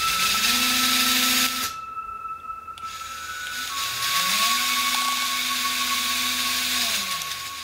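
Two LEGO buggy motors spinning the buggy's lifted wheels with a high whirring whine: they spin up, run steadily for about a second and a half and stop, then spin up again about four seconds in, run for nearly three seconds and wind down.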